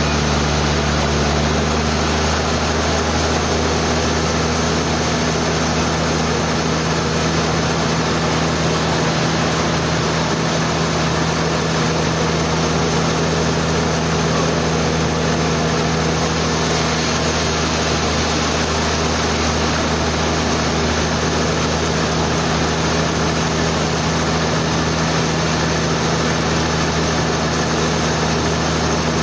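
Sawmill machinery running steadily: a constant low engine hum under an even, unbroken noise.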